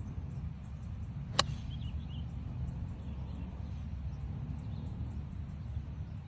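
A golf iron striking the ball off the fairway: one sharp click about a second and a half in, over a steady low background rumble.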